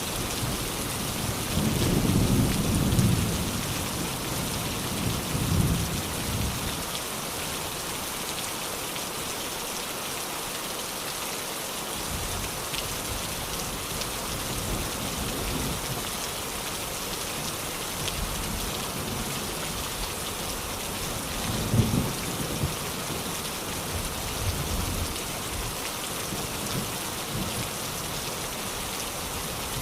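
Steady rain falling, with low rumbles of thunder a couple of seconds in, again around five seconds, and a brief louder one a little past twenty seconds.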